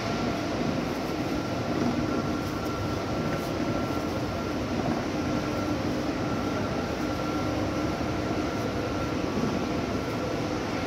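Steady industrial rumble with a faint continuous hum, typical of factory hall machinery.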